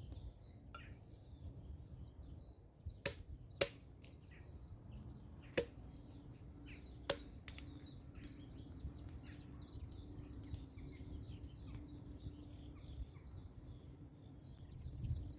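Birds chirping and singing throughout, with four sharp snaps of dry sticks being broken for kindling, the first two close together about three seconds in, then two more a couple of seconds apart. A faint steady low hum sits underneath.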